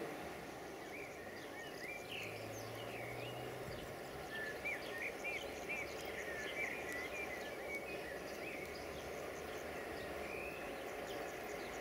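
Small birds singing in short chirps and trills, busiest in the middle, over a steady low background rumble.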